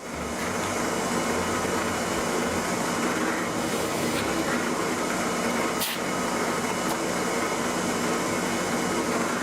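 A workshop power tool's motor running steadily with a hissing whir, and one brief click about six seconds in.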